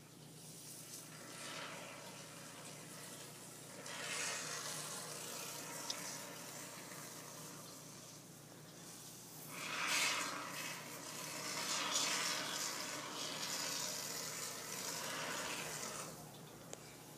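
Great Stuff Gaps and Cracks polyurethane spray foam hissing out of the can in several long spurts. The longest and loudest runs from about ten seconds in until near the end.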